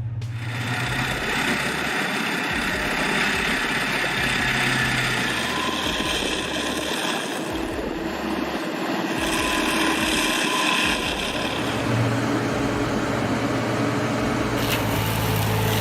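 Stump grinder running steadily, its engine under load and its grinding head working with a dense, continuous noise.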